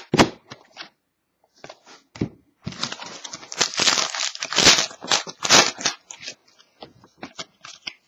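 A few light taps as trading cards are laid on a table, then a sealed hockey card pack's shiny wrapper being torn open and crinkled for about three seconds, with small rustles and clicks as it is handled.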